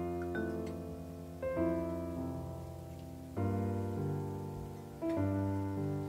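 Background piano music: slow, soft chords struck about every two seconds, each left to ring and fade before the next.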